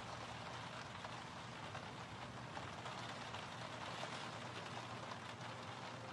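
Steady rain falling on a window.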